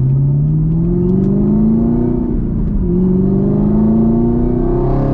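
Supercharged LT4 V8 of a Chevrolet Camaro ZL1 accelerating: the engine note climbs steadily, drops with an upshift about two and a half seconds in, then climbs again in the next gear.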